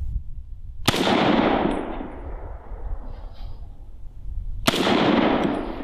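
Two shots from an M1 Garand rifle firing .30-06 M2 armor-piercing ammunition, about four seconds apart; each is a sharp report that trails off over about a second.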